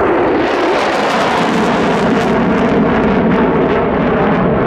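Two F/A-18 Hornet fighter jets, each twin-engined, running at high power as the pair climbs away: loud, steady jet noise with a crackling edge.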